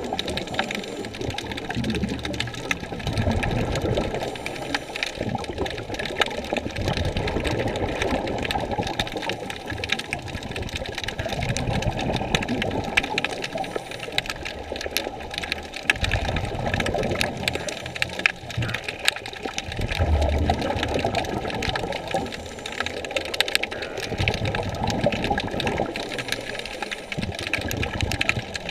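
Water noise picked up by a camera underwater: a muffled, uneven rushing with slow swells in the low end and many small clicks and crackles throughout.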